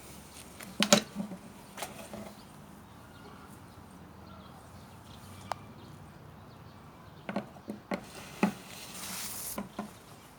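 A large plastic jug being knocked and dragged by a big raptor's beak: a few sharp hollow knocks and clatters, a cluster of them late on, then a short scraping hiss.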